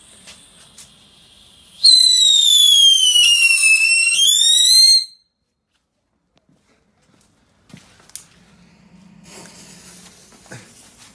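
Small category 1 Funke Feuerwerk firework whistling loudly for about three seconds, its shrill pitch sliding down and then back up before it cuts off. A few seconds later a second small firework starts hissing as it sprays sparks, with a short crackle near the end.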